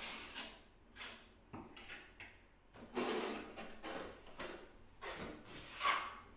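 Hand trowel scraping wet white compound onto a wall and scooping more from a plastic bucket, in a series of short scraping strokes. The loudest strokes come about three seconds in and near the end.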